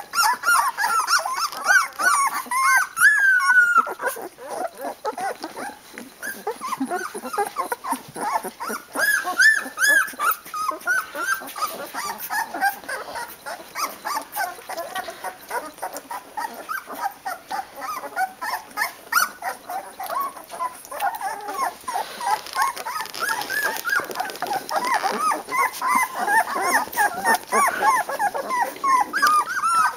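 A litter of young Boerboel puppies whimpering and squealing, many short high cries overlapping one another without a break.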